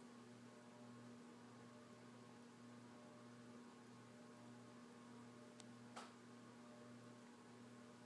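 Alaska 52-inch ceiling fan (model AC-4152) running, its large spinner motor giving a faint, steady hum with a slight regular pulse. A single short click about six seconds in.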